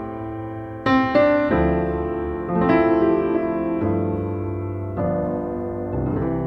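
Background music: a slow piano piece, chords struck every second or so and left to ring and fade.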